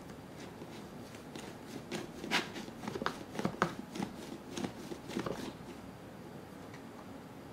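TAKARA TOMY Kurunde Korokoro Odango Party toy, a plastic dango roller, worked by hand while it rolls rice-flour dough into balls: an irregular run of plastic clicks and rattles, busiest in the middle and thinning out near the end.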